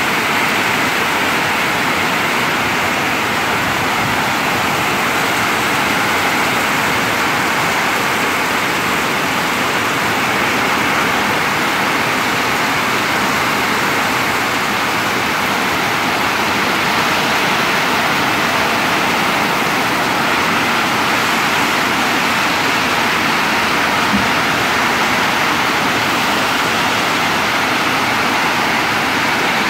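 Heavy rain falling steadily on a tin roof: a loud, even rushing hiss that does not let up.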